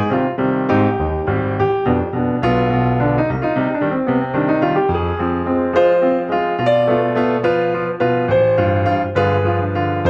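Background music: a piano-led tune playing a steady run of notes.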